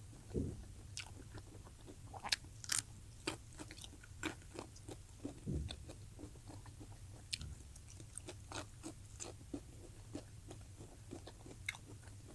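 Close-miked eating: a person biting and chewing food, with irregular crunches and wet mouth clicks, over a low steady hum.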